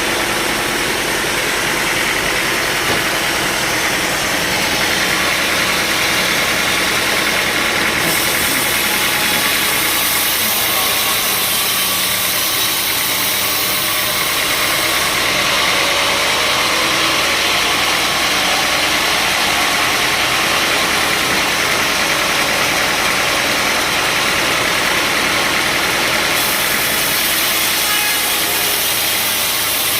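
Sawmill machinery running with a steady mechanical noise. Its high hiss steps up and down abruptly a few times.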